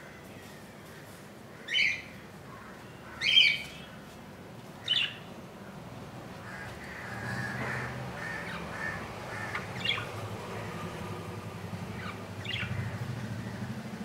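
Budgerigars calling: three loud, sharp squawks a second and a half apart, then softer, continuous chattering with a few brief chirps.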